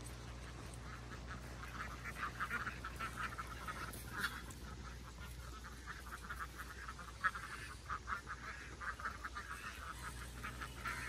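Ducks quacking, a long run of short, rapidly repeated calls.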